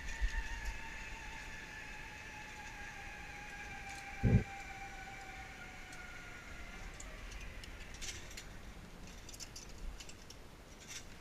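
Zipline trolley pulleys running along the steel cable, a whine that slowly falls in pitch and fades away over about seven seconds. A single dull thump about four seconds in, and scattered metallic clicks near the end.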